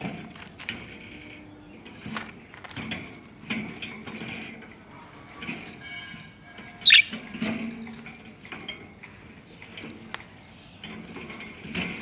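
Pet budgerigars moving about in a wire cage close to the microphone: scattered clicks, taps and wing flutters, with a few short chirps and one sharp, loud chirp about seven seconds in.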